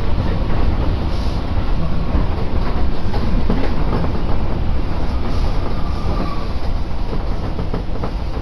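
Running noise inside a moving Tobu Isesaki Line train car: a steady low rumble of wheels on the rails with scattered clicks of the wheels clattering over the track.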